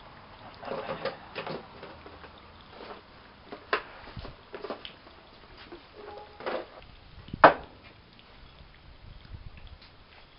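Rummaging through things stored under a workbench: scattered knocks and clatters of objects being shifted and picked up, with the sharpest knock about seven and a half seconds in.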